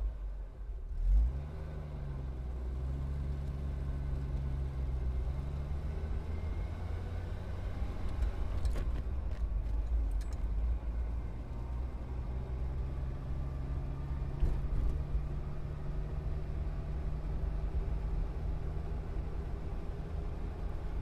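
Air handling unit's blower and electric motor running, a steady low hum over a rumble; the hum wavers briefly in the first few seconds, then holds steady.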